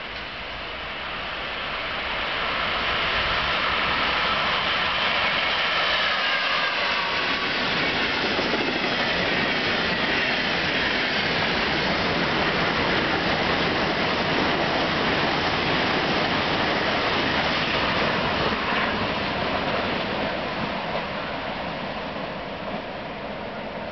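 Passenger train hauled by an E402A electric locomotive passing through a station. The rush of wheels on rail builds over the first few seconds, with a high whine that falls in pitch in the first half, then holds steady as the long line of coaches rolls by and fades near the end.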